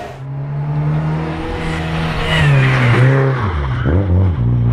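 Competition car's engine running hard at high revs, its pitch bending up and down through gear changes and lifts from about halfway, then settling to a lower note near the end.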